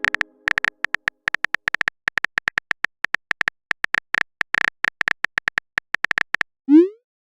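Texting-app sound effects: a rapid, uneven run of short high typing clicks, then a quick rising swoop near the end, the sound of a message being sent.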